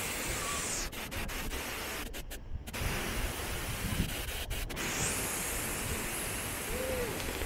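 Steady rushing noise of the El Chiflón waterfall, mixed with rubbing on the handheld microphone. The sound goes muffled for a moment about a second in, then returns.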